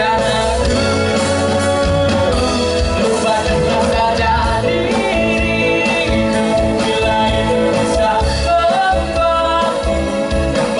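Live rock band playing a song: amplified guitars, bass and drums with a singer's voice over them.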